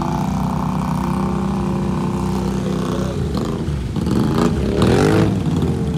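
ATV engines running steadily, then revved up and down several times from about three seconds in, loudest around five seconds.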